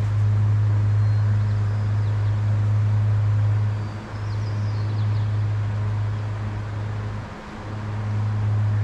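A steady low hum, the loudest sound, dipping out briefly twice, over an even hiss of flowing river water.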